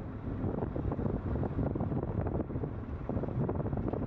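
Wind buffeting the microphone on the deck of a moving coaster ship: an uneven, rumbling gusty noise with no clear pitch.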